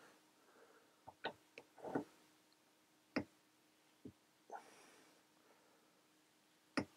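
Faint, scattered clicks and knocks, about eight in all with the clearest about three seconds in, as a 3/8" drive insulated Knipex torque wrench is seated on a torque tester's square drive and pulled. There is no distinct audible click as the wrench releases.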